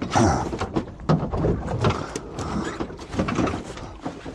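Irregular knocks and clatter of gear being handled on a small fishing boat, with a loud burst of knocking at the start.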